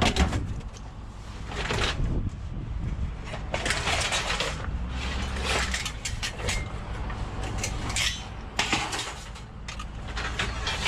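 Loose scrap metal clattering and scraping in irregular bursts as it is handled and sorted, over a low steady hum.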